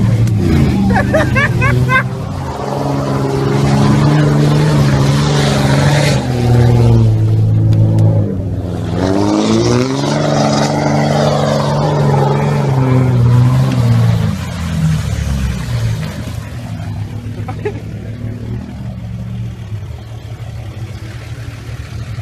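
Pickup truck engine revving, its pitch climbing and falling, dipping and rising again near the middle, as the truck tries to pull through deep mud; about two-thirds through it eases off to a quieter, lower running.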